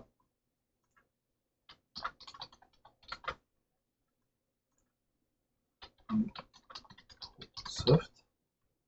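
Computer keyboard typing in two short runs of quick keystrokes, the first about two seconds in and the second from about six seconds in.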